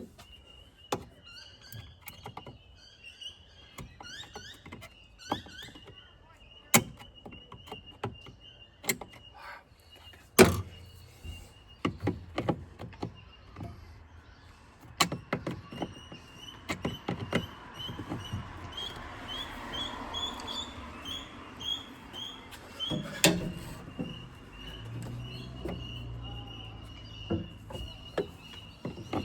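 Irregular sharp clicks and knocks of hand work on a truck's plastic airbox, the loudest about ten seconds in. Birds chirp over a steady high-pitched tone in the background.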